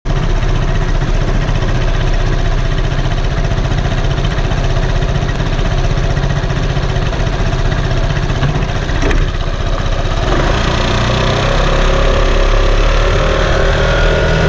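Vespa scooter engine idling steadily, then speeding up as the scooter pulls away about ten seconds in, its pitch rising.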